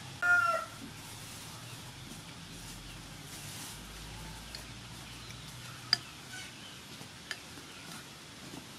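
A chicken gives one short, loud call just after the start. Later a metal spoon clinks a few times against a ceramic soup bowl.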